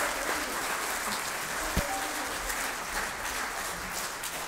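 Congregation applauding, a steady patter of many hands clapping, with one sharp knock a little under two seconds in.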